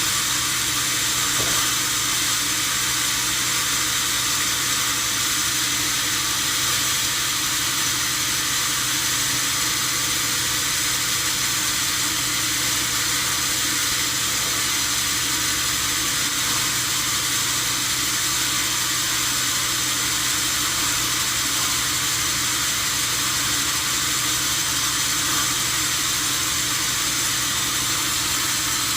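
Sawmill machinery running steadily, a loud, even hissing noise with a faint hum underneath that does not change throughout.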